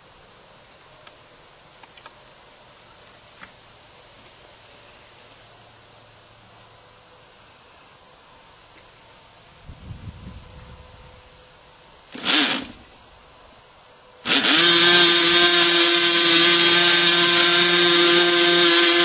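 Piped and ported Thunder Tiger GP42 glow two-stroke model-airplane engine turning a 9x7 propeller. A short loud burst comes about twelve seconds in. About two seconds later the engine cuts in suddenly and runs loud and steady at a high, even pitch.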